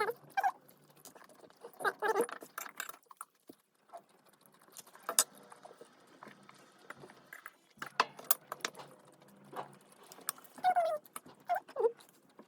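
Kitchenware clinking and clattering in irregular light knocks, with a few short squeaks, as of utensils scraping on dishes, near the start, around two seconds in and near the end.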